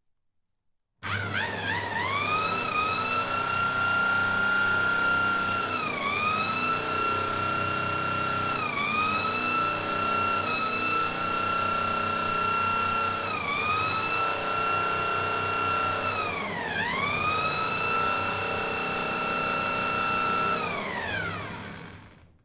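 Electric drill spinning a motorcycle magneto flywheel to drive a CDI ignition spark test: the drill motor's high whine starts suddenly, dips in pitch four times as it slows and recovers, then winds down and stops near the end.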